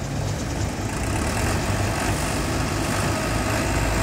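The Farmtrac 6065 diesel engine set in a Balkar combine harvester running steadily, with a low rumble.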